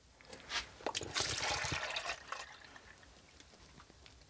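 Transformer mineral oil pouring out of a brass tank into a plastic bucket: a few small knocks, then a gush about a second in that dies down to a quieter trickle.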